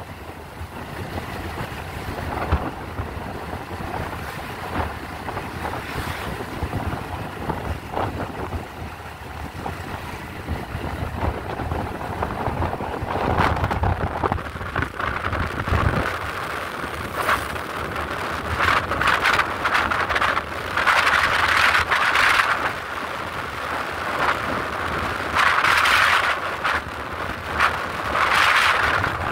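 Wind buffeting the microphone of a moving motorcycle, over its small engine running. The wind gets louder and gustier in the second half.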